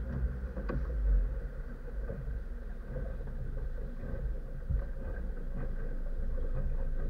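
Mercury Verado outboard motor running steadily with the boat underway, with a few brief thumps over the engine hum.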